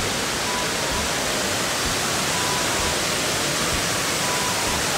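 Tall indoor waterfall pouring down a wall: a steady, even rush of falling water.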